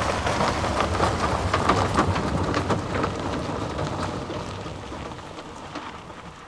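Rain pattering: a dense run of many small drop ticks over a steady low rush, fading out over the last couple of seconds.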